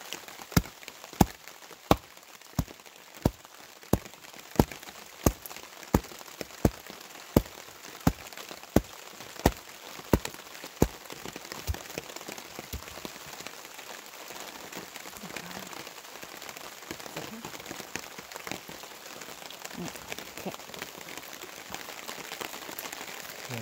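A hatchet chopping cow parsnip root on a wooden board: sharp, evenly spaced strokes, about three every two seconds. They stop about halfway through, leaving a steady hiss.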